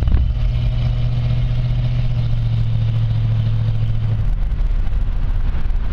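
Ford 460 big-block V8 exhaust through homemade single-chamber mufflers, a loud steady low drone heard from the cab while driving through an underpass. The drone drops away about four seconds in.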